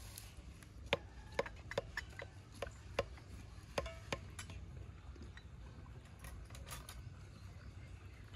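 Knife blade clicking and scraping against a metal baking pan as a pie is sliced in it: a run of sharp clinks over the first four seconds or so, then only faint ticks.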